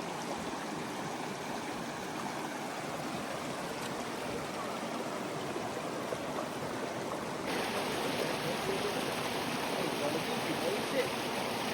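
Spring water flowing in a steady rush, a little louder about two-thirds of the way through.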